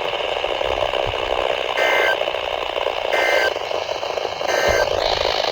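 NOAA Weather Radio receiver hissing with static, broken by three short bursts of two-tone digital warble about a second and a half apart. These are SAME header bursts, the data code that opens an Emergency Alert System weekly test.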